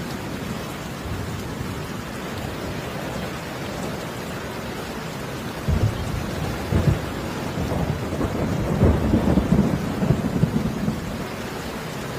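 Steady rain with low rumbles that come and go, growing stronger from about six seconds in.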